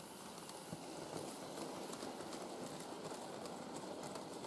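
Model railway train, a small tank locomotive pulling goods wagons, running along the track and over the points: a steady rolling rumble with a rapid run of clicks from the wheels crossing rail joints.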